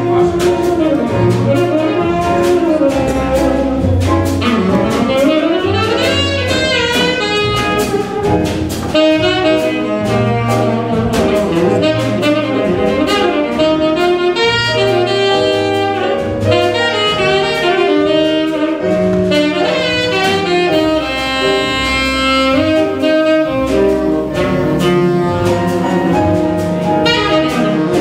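Live jazz combo: a tenor saxophone solos in fast runs and gliding phrases over piano, double bass and drums.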